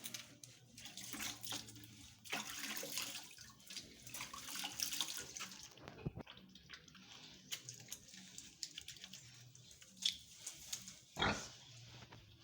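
Farrowing gilt giving low, repeated grunts, with a spell of hissing noise for a few seconds, scattered clicks, and a sharp knock near the end.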